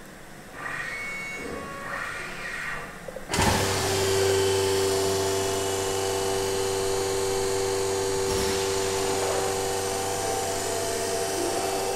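Format 4 CNC machining centre starting work on a door panel: after a few lighter machine sounds, the router spindle starts suddenly about three seconds in. It then runs steadily with a constant high whine over a low hum.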